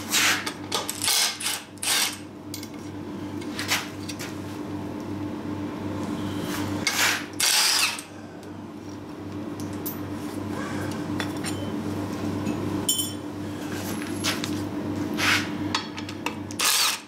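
A steady machine hum from a running workshop machine, broken by short, loud bursts of metal clatter and tool noise as a metal assembly is pulled apart. The longest burst comes a little before halfway through.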